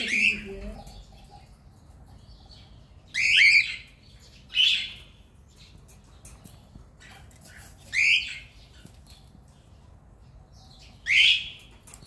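Cockatiels calling: a handful of short, shrill calls with bending pitch, a few seconds apart.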